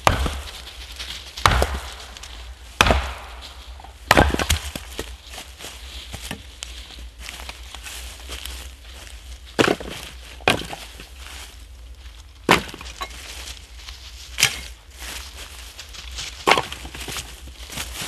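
Axe splitting firewood on a wooden chopping block: about nine sharp blows at uneven intervals, one to two seconds apart, with a pause of several seconds in the middle.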